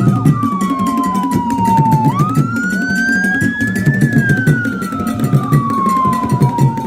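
A siren wailing. It falls slowly in pitch over about three seconds, rises quickly about two seconds in, then falls slowly again. Under it runs music with a steady, pulsing low beat.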